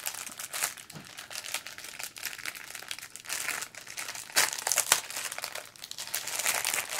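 Clear plastic wrapping around a strip of diamond-painting drill bags crinkling as hands handle and unroll it. The sound is a run of irregular rustles and crackles, with a couple of louder crackles past the middle.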